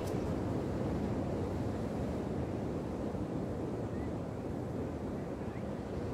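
Steady wash of sea surf on a beach, with wind noise on the microphone.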